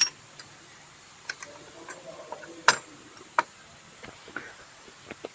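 A few sharp, separate metallic clicks and taps from hand tools and fixings as a mounting bracket is fitted on the engine. The loudest comes just under three seconds in, with another a moment later.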